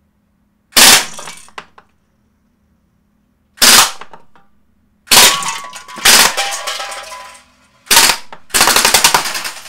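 KWC Mini UZI CO2 blowback BB submachine gun firing short bursts, about six in all, the last and longest near the end a rapid rattle of shots. Steel BBs strike aluminium drink cans with metallic clanks, knocking them over.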